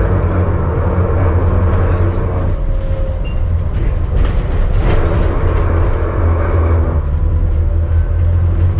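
Alexander Dennis Enviro400 MMC hybrid double-decker bus heard from on board while under way: a steady low drivetrain hum and road rumble, with a few short rattles about halfway through.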